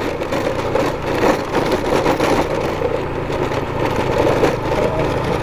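Trail motorcycle engine running steadily under way on a rough dirt road, with a dense rough noise of riding over it.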